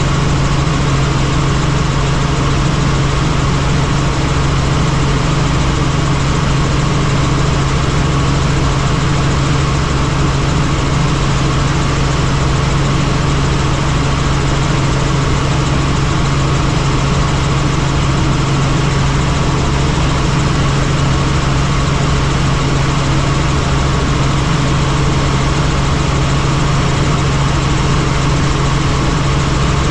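Helicopter in flight: its engine and rotors make a loud, unbroken drone with a strong low hum under a constant rush.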